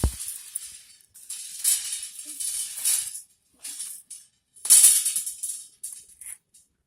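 Dry leaves rustling and crackling in several bursts as they are scooped up and handled, with a short low thump at the start.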